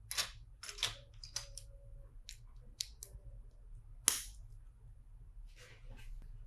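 Plastic LEGO bricks clicking and clattering as they are handled and fitted together: a string of sharp clicks at irregular intervals, the loudest about four seconds in.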